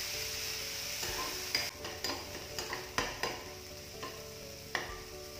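Chopped onions sizzling as they fry in oil in a kadai. From about a second and a half in, a spatula stirs and scrapes against the pan in several sharp strokes.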